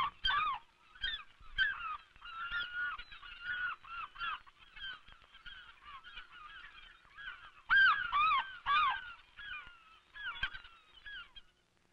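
A flock of birds calling: many short, honking calls that overlap and come one after another, loudest about eight seconds in, then thinning out near the end.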